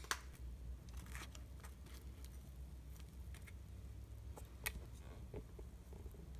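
Kitchen handling noises while cooking butter-fried kirimochi: a few sharp clicks, loudest at the start and again near the end, with faint crackling between them, over a low steady hum.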